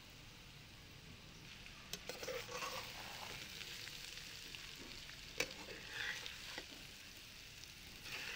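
A metal spatula stirs and scrapes crumbly ground chana dal frying in ghee in an aluminium pot, with a faint sizzle. The stirring starts about two seconds in, and the spatula clicks sharply against the pot a couple of times.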